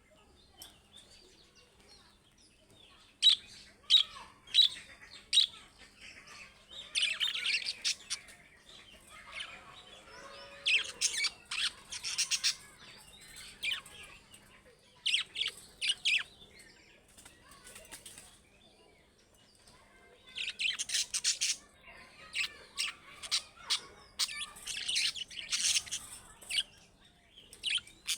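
Budgerigars chirping and chattering in short, rapid bursts, with quieter gaps between them.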